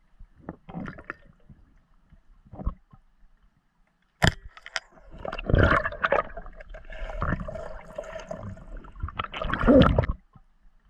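Underwater noise during a spearfishing dive: a sharp click about four seconds in, then several seconds of churning water and scraping, loudest just before it stops.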